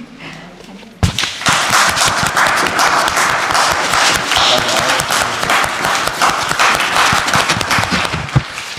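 Audience applauding, a dense patter of many people clapping that starts suddenly about a second in and dies away near the end.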